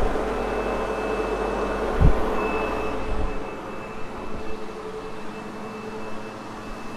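Sebo X8 upright vacuum cleaner running on carpet, a steady whirring with a thin high whine. A low thump about two seconds in, and the sound grows somewhat quieter after about three and a half seconds.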